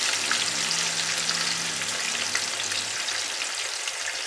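Chicken and paneer kebab skewers deep-frying in hot groundnut oil: a steady sizzle with many small pops.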